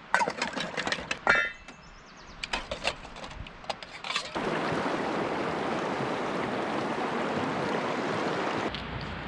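Stainless-steel camp plates clinking and knocking against each other and the sides of a plastic wash tub, with water sloshing as they are rinsed. About four seconds in, this gives way to the steady rush of a shallow, rocky river running over riffles.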